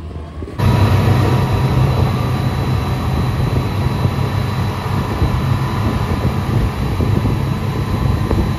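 Speedboat engines running at speed: a loud, steady, low drone mixed with the rush of wind. It starts abruptly about half a second in.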